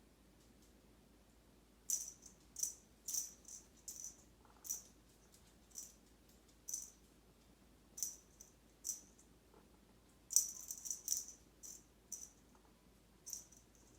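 A small rattle cat toy shaken and batted by playing kittens: about a dozen short, sharp rattling bursts at irregular intervals, starting about two seconds in, with a quick cluster of them after about ten seconds.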